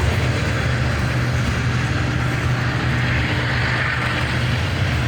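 Diesel freight locomotives running, a steady low engine rumble with no horn.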